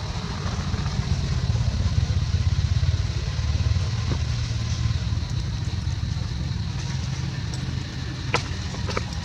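A motor vehicle's engine running with a low rumble, swelling about a second in and easing after about four seconds, with a few sharp clicks near the end.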